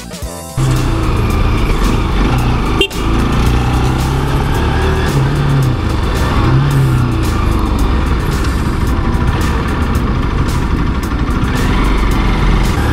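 Motorcycle engine running as the bike rides along, its note rising and falling with the throttle. It starts abruptly about half a second in.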